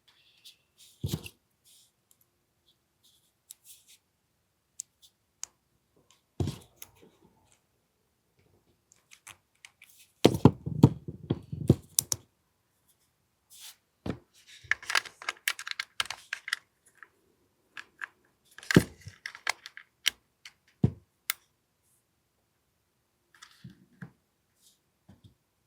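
Hand work on an AAP-01 airsoft pistol's parts: scattered sharp clicks and knocks, a quick run of clatter about ten seconds in, a rustling stretch a few seconds later, and two more sharp clicks near the end of the busy part.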